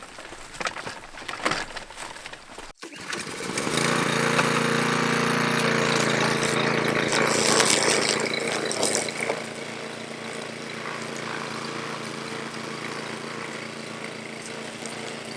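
Walk-behind field and brush mower's engine running at a steady speed while cutting tall grass and blackberry brush. It is louder for several seconds, then drops to a lower level about nine and a half seconds in. Before it, about three seconds of faint, uneven outdoor noise.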